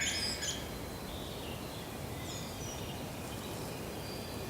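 Forest ambience: a steady low background hiss with a few faint, high bird chirps scattered through it, and a brighter bird call fading out right at the start.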